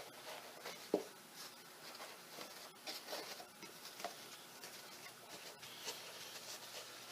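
Faint rustling and patting as upholstery batting is pulled around a foam-padded seat board and pressed down onto spray adhesive, with a light knock about a second in.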